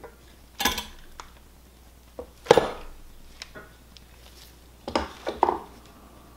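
Mallet tapping a lower main bearing shell into its saddle in a BMW N54 engine's aluminium lower crankcase: about four sharp knocks with a few lighter ticks, the loudest about halfway through. The shell is a tight fit and hard to move.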